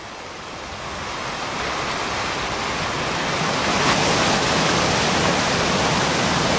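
High Force waterfall on the River Tees: a steady rush of water plunging over the falls. It grows louder over the first two seconds, then holds.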